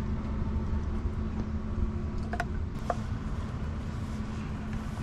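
Steady low engine-like rumble with a constant hum, with a few light clicks in the middle from the crabs being handled and snipped with kitchen scissors.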